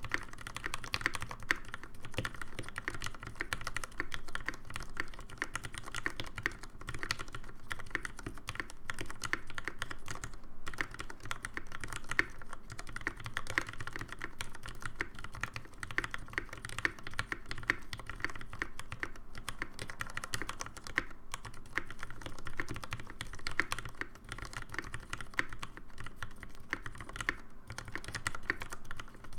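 Continuous typing on a custom Kyuu winkeyless mechanical keyboard with linear 64 g Cherry MX Vintage Black switches and PBT keycaps: a dense, steady stream of key clacks.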